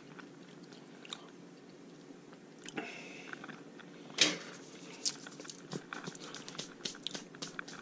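Chewing a crisp, flaky homemade pizza crust close to the microphone, with small mouth clicks. One sharper crack comes about four seconds in, and a quick run of small clicks and crackles follows over the next few seconds.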